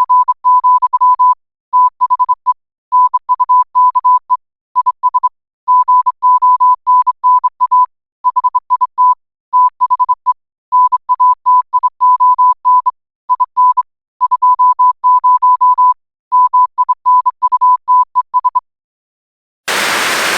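Morse code sent as a single mid-pitched electronic beep, keyed in short and long pulses grouped with pauses. The beeping stops near the end, and after a second's gap a loud burst of static hiss begins.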